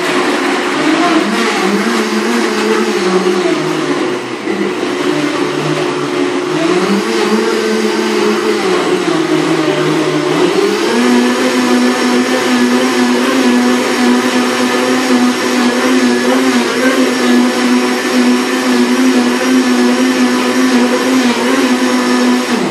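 High-powered countertop blender running, fairly loud, pulverising a green smoothie of leafy greens, orange, ginger and avocado. The motor's pitch wavers and dips for about the first half, then settles to a steady, higher note until it stops suddenly at the end.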